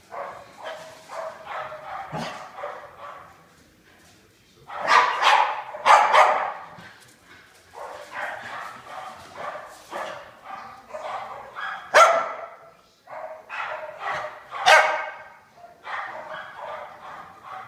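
A dog barking and yipping in play, in repeated bursts of calls. The loudest calls come about five, six, twelve and fifteen seconds in.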